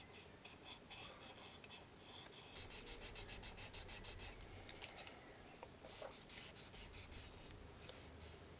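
Faint, quick, repeated scratchy rubbing strokes against the vinyl body of a vintage Barbie doll during repainting work.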